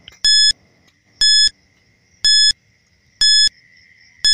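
Countdown-timer sound effect: five short electronic beeps, one a second, over a faint steady high-pitched tone.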